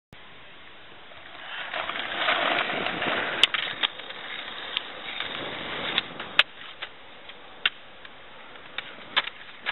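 Skateboard wheels rolling on concrete, growing louder about a second and a half in, with sharp clacks of skateboards striking the concrete scattered throughout.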